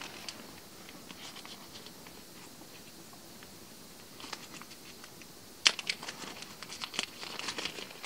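Small plastic bag being handled and crinkled by fingers. It is faint at first, then a sharp click a little past halfway is followed by a run of crinkles and ticks.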